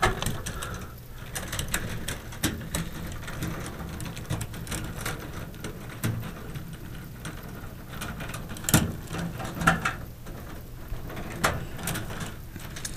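Close handling noise of a bundle of insulated ballast wires being gathered and twisted together: irregular rustling and small clicks as the wires brush and tap against the sheet-metal fluorescent fixture, with a sharper knock about nine seconds in.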